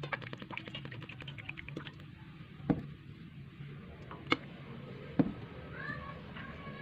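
A utensil clicking against a bowl while the tapioca dough is mixed: quick light clicks for about two seconds, then three separate knocks spaced about a second apart.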